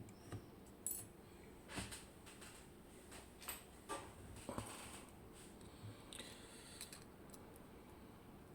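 Faint, scattered small metal clicks and a brief scrape as a Miwa EC lock cylinder is being taken apart with a shim and small tools; about five sharp clicks in the first half, then a short scrape.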